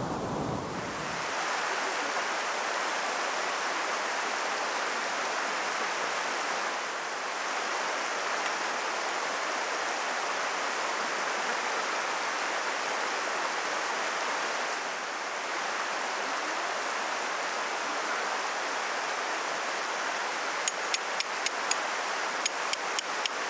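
Steady rush of flowing stream water. Near the end a quick run of sharp, high, bright pings comes in over it.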